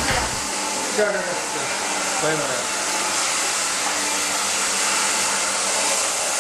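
Handheld hair dryer blowing steadily, a constant rushing hiss, while drying a person's hair.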